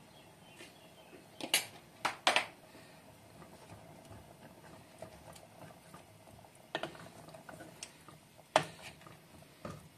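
Spoon and spatula knocking against a cooking pot while a thin spinach gravy is stirred: about six short, sharp clicks, a cluster of three in the first few seconds and the rest near the end, over faint stirring.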